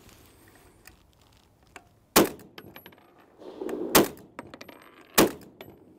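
Three single shots from an M1915 Howell automatic rifle, a self-loading conversion of a Lee-Enfield No1 MkIII firing .303 British, fired one at a time: the first about two seconds in, then shots about two seconds and a second apart. A few faint clicks come between the shots.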